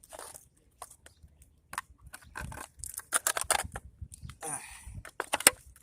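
Sharp clicks, knocks and short scrapes of sheet metal and plastic as a desktop PC case is pried and worked open by hand, with a longer rasping scrape about four and a half seconds in.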